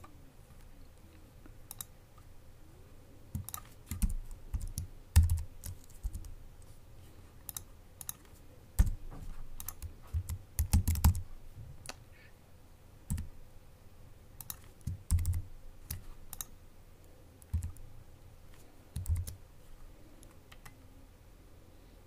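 Typing on an Apple Mac computer keyboard: irregular short bursts of key clicks with pauses between, a few strokes landing with a heavier, dull thump.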